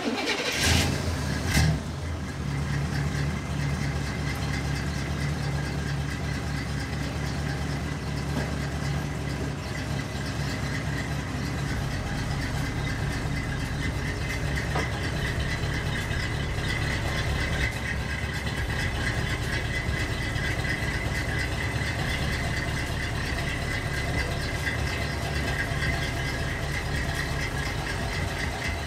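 A vehicle engine idling steadily, with a steady higher whine over it, while a car is unloaded from a flatbed tow truck. A couple of sharp knocks come in the first two seconds.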